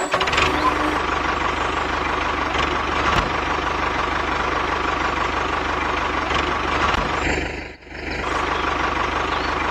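Tractor engine running steadily with an even, low chug. It briefly drops away for a moment about eight seconds in.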